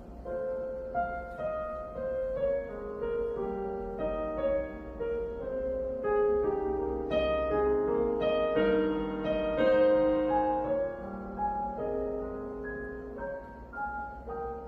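Yamaha CK88 stage keyboard's sampled acoustic piano sound, played as a melody over held chords. It grows louder toward the middle of the passage.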